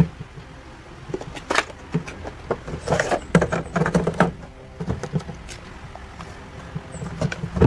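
A cardboard Funko Pop box and its plastic insert being handled and opened: scattered clicks, taps and rustles of cardboard and plastic, busiest in the middle.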